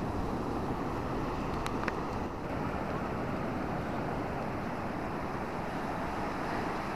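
Surf breaking and washing up the beach, a steady rushing noise mixed with wind on the microphone. Two short clicks about two seconds in.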